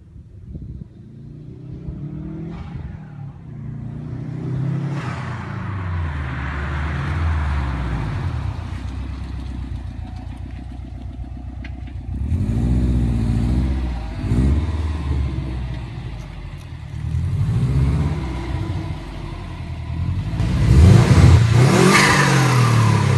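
2011 Subaru WRX's turbocharged flat-four running through an XFORCE turboback exhaust, revving up and dropping back several times, loudest near the end. Turbo flutter on throttle lift-off, since the blow-off valve is blocked and cannot vent boost.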